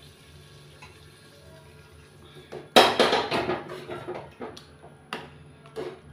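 Metal spoon clanking and scraping against a steel pan while stirring a wet vegetable mix: one loud clank just under three seconds in, then a run of lighter knocks and scrapes.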